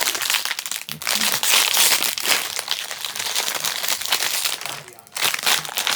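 Plastic snack packaging crinkling and rustling as it is handled, loud and continuous, with a brief lull about five seconds in.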